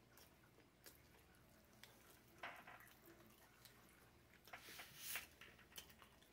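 Faint chewing of a mouthful of sandwich: soft wet mouth sounds and small clicks, a little louder about two and a half seconds in and again around five seconds in.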